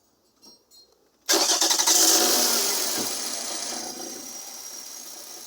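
Toyota 2MZ V6 engine started about a second in: a brief burst of starter cranking as it catches, flaring up in revs, then settling and slowly dropping to idle. The engine has a misfire and is being run with one cylinder's ignition part pulled off to find the dead cylinder.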